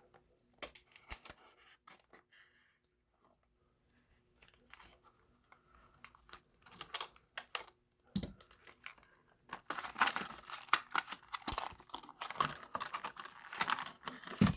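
A padlock's packaging being torn open and crinkled in scattered bursts, nearly still for a couple of seconds early in, busiest near the end, where keys jingle briefly.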